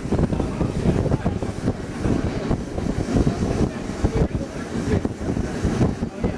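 Wind buffeting the microphone at an open window of a moving passenger train, over the steady rumble of the train rolling on the rails.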